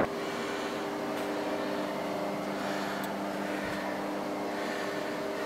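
A steady machine hum made of several held, even tones that do not change.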